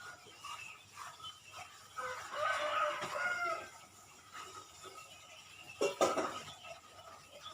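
A rooster crowing once, about two seconds in, over scattered chirping of small birds. There is a short, louder call just before six seconds.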